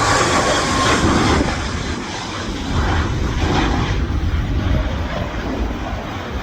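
Jet aircraft engines running loud, a high whine falling in pitch and fading out about a second in, while the deep rumble slowly eases as the aircraft moves away. Wind buffets the microphone throughout.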